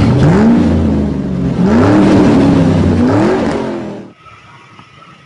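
Car engine revved three times, each rev climbing in pitch and falling back, then cut off abruptly about four seconds in.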